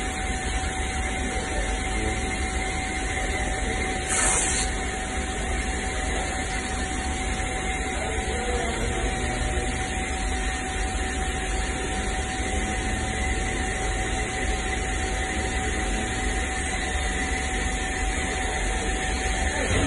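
Steady hum and hiss of body-shop machinery with a faint constant whine. About four seconds in comes a short high-pitched ripping sound, masking tape being pulled off the roll.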